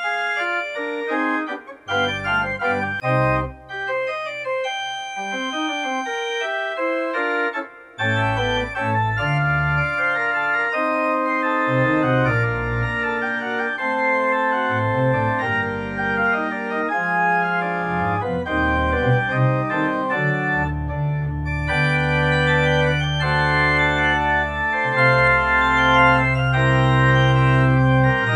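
Organ music: held chords moving from note to note, with bass notes coming in about two seconds in and a full, continuous bass from about eight seconds in.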